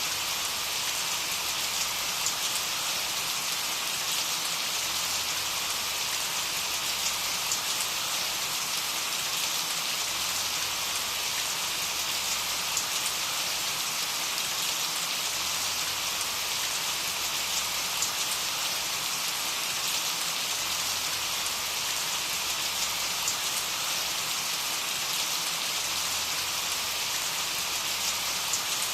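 Steady rain falling on a surface: an even hiss made of countless small drop patters, with no thunder.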